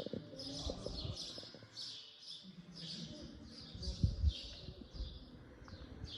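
Small birds chirping, a quick run of short, high calls about two or three a second, with a few low thumps about four seconds in.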